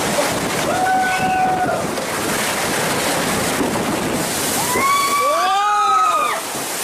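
Water rushing and sloshing steadily along a log flume channel as the boat rides through. A held tone sounds about a second in, and a longer call that rises and falls comes near the end.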